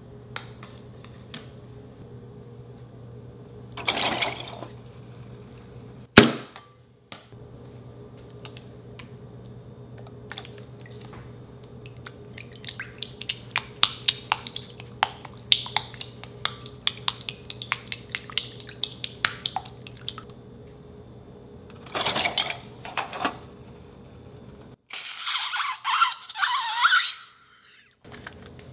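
Slime-making sounds: white glue squeezed from a balloon into a glass bowl and stirred with a spatula. Through the middle comes a long run of quick sticky clicks and crackles, with a few short wet bursts later on. The loudest thing is one sharp knock about six seconds in, all over a steady low hum.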